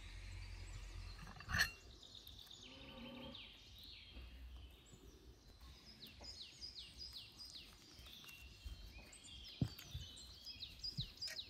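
Small birds chirping, with runs of quick falling high notes repeated many times, busiest in the second half. A single sharp knock about one and a half seconds in, and a few light taps near the end.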